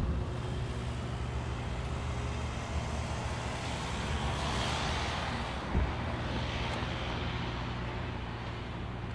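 Street traffic noise over a steady low rumble. A car passes about four to six seconds in, and there is a short low thump near six seconds.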